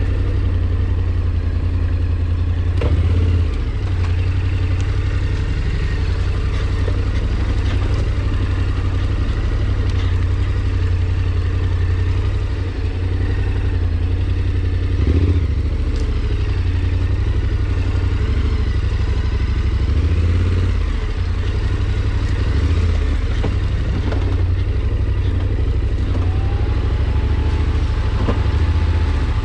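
An engine running at a steady speed, with a deep hum and a few brief knocks and rattles.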